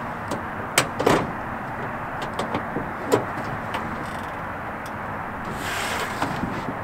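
A Toyota Tacoma's tailgate being unlatched and dropped open, with two sharp knocks about a second in, then scattered light knocks and a rubbing, sliding noise near the end as a body slides over the bed and tailgate, over a steady outdoor hiss.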